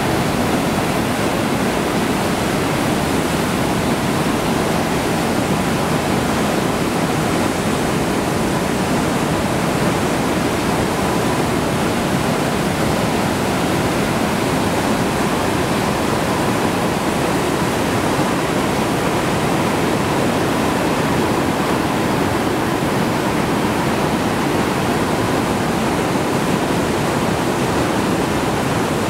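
The Rhine Falls rushing and churning: the loud, steady, unbroken noise of a huge volume of water crashing over the rocks.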